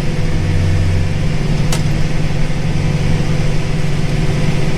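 Combine harvester's engine running steadily, a low even hum, with a single sharp click a little under two seconds in.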